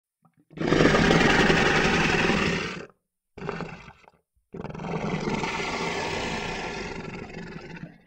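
Monster roar sound effect made from a processed human voice: a loud roar of about two seconds, a short fading burst, then a longer, quieter roar that tails off.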